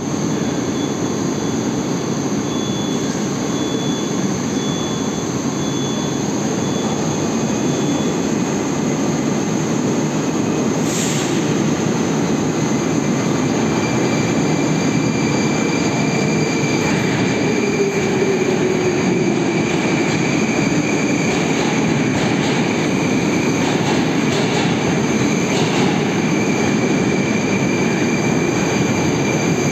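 Moscow Metro 81-760 'Oka' train running into the station and braking to a stop, with a steady heavy rumble. A high wheel squeal comes in about halfway through, and a falling whine follows as the train slows.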